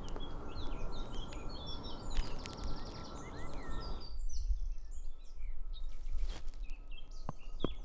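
Small birds chirping and singing, many short calls overlapping, over a low steady background rumble. A few small clicks come near the end.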